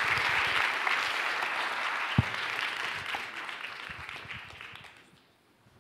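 Audience applauding, fading out and dying away about five seconds in, with a single sharp thump about two seconds in.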